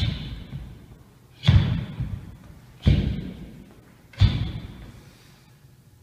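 Four heavy thuds, evenly spaced about a second and a half apart, each fading out with a long echo.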